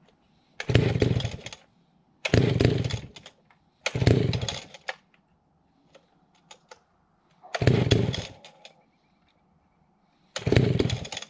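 Alpina Pro 120 chainsaw, a 120cc saw, being pull-started five times: each pull is a burst of about a second that dies away, and the engine does not stay running.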